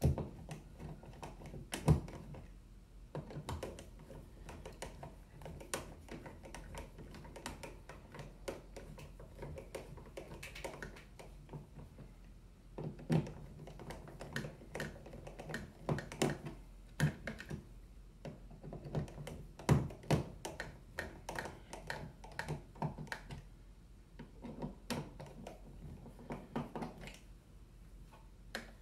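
Screwdriver driving the mounting screws of a dimmer switch into a wall box: irregular small clicks, taps and scrapes of metal on metal, with a few sharper knocks.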